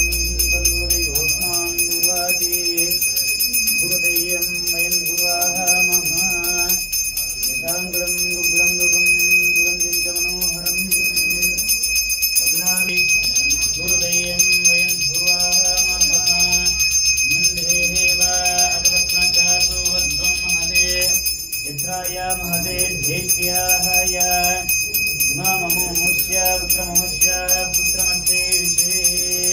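Bells ringing without a break, a steady high ringing over devotional music with a wandering melodic line.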